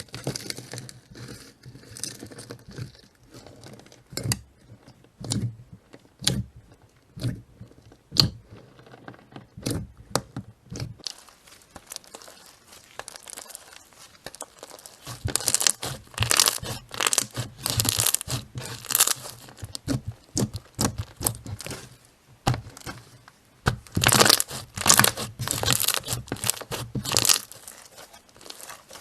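Slime being squeezed and worked by hand, crackling and popping: scattered pops first, then two longer stretches of dense crackling.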